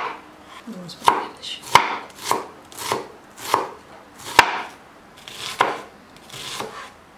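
Kitchen knife chopping red onion on a wooden cutting board: a series of separate, unhurried cuts, each ending in a sharp knock of the blade on the board, about one every half second to a second.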